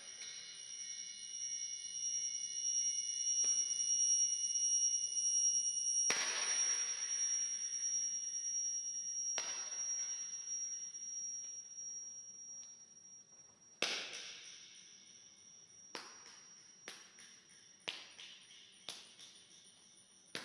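Electronic audio feedback from a microphone, camcorder and computer loop: several steady high whistling tones that drop out one group at a time at sharp clicks, about six and nine seconds in, and then fade. Near the end a run of sharp clicks comes about once a second over a faint remaining whine.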